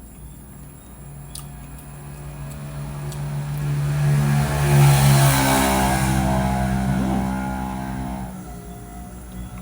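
A motor vehicle engine passing by, growing louder to a peak midway and then fading away.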